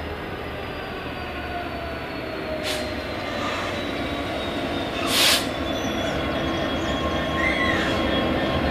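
A train running on the rails, with faint whines slowly falling in pitch and two short bursts of hiss, the second louder.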